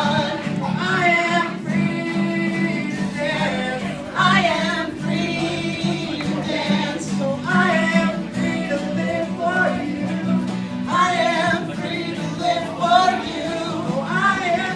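Music with singing: a song with a sung vocal line over steady sustained accompaniment.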